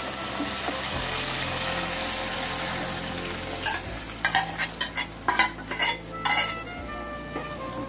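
Cooked chana dal poured into hot oil and spices in a kadai, setting off a loud, even sizzle that dies down after about four seconds. After that a metal ladle scrapes and knocks the rest of the dal out of the pot into the pan.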